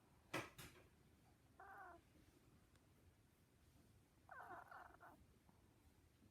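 Sleeping Maltese dog giving two faint, high-pitched squeaky snores through its nose: a short one about a second and a half in and a longer one about four seconds in. A sharp click comes just before the first.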